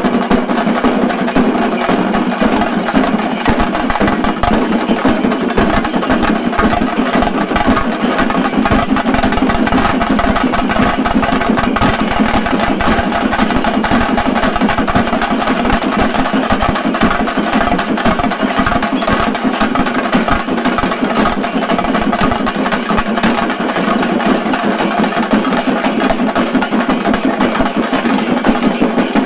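Chenda drums of a shinkari melam ensemble playing a fast, dense, unbroken rhythm of sharp stick strokes.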